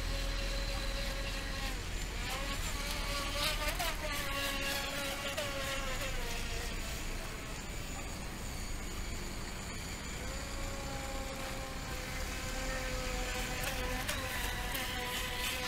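Radio-controlled model racing boats running flat out on the water, their motors making a high buzzing whine that rises and falls in pitch as they pass and turn. More than one boat is heard at once, the pitch sweeping sharply as one goes by a few seconds in.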